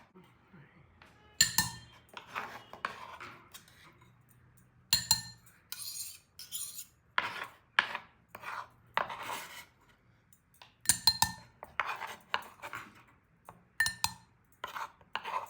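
Kitchen knife cutting a turnip into small pieces: irregular knocks and scrapes of the blade against the board and dish.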